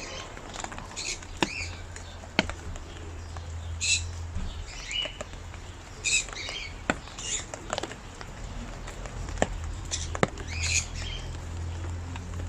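Rain falling, with scattered sharp drips tapping close by over a low steady rumble, and a small bird chirping every second or two.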